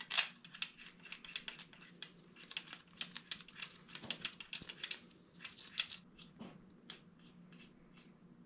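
A quick, uneven run of light metallic clicks and ticks as outer perimeter studs and their nuts are fitted by hand into an engine bedplate, thinning out after about six seconds.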